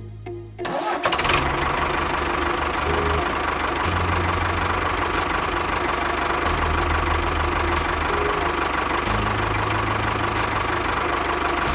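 A small motor starts abruptly about a second in and runs steadily with a whirring, gritty noise, over background music.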